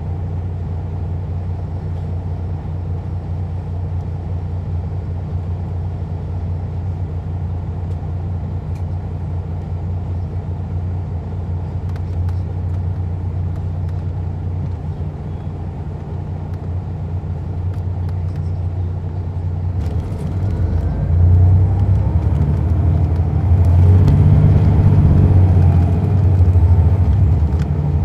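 A 2001 MCI D4000 coach's Detroit Diesel Series 60 engine heard from inside the bus, running at a steady low hum. About twenty seconds in it grows louder and rougher as the engine works harder.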